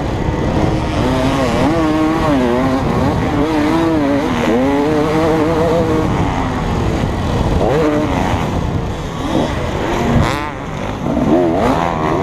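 KTM 250 SX two-stroke motocross bike's engine at race pace, its pitch rising and falling as the rider works the throttle and gears. Near the end the engine drops off briefly, then picks up again.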